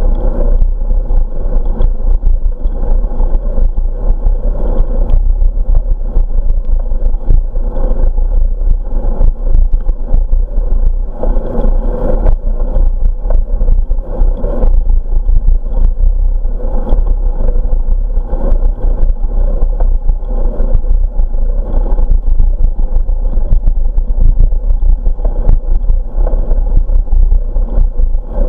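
Steady wind rumble and road noise on the microphone of a camera riding on a moving bicycle, with frequent small knocks and rattles throughout.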